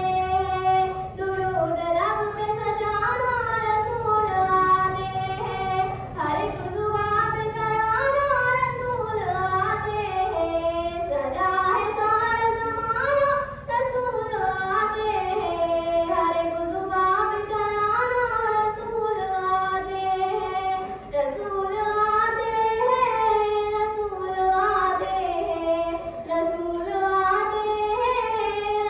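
A girl singing a naat, an Urdu devotional poem in praise of the Prophet, solo and unaccompanied into a microphone, in a melodic chant with long held and gliding notes.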